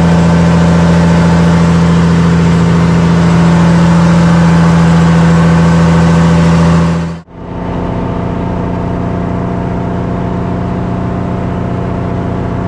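Boat engine running at a steady, constant pitch. It cuts off abruptly about seven seconds in, and a quieter stretch of a similar steady engine drone follows.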